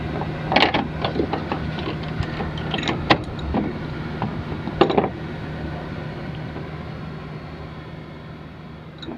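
Irregular metal clicks and knocks of a bolt and tool being handled and fitted at the headlamp area, over a steady low hum. The clicks are thickest in the first five seconds, then stop.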